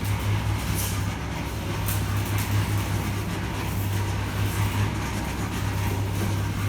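Steady low mechanical hum under a constant rushing noise, with a few light clicks.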